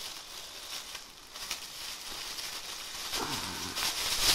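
Thin clear plastic bag crinkling and rustling as it is handled and opened, with many small irregular crackles.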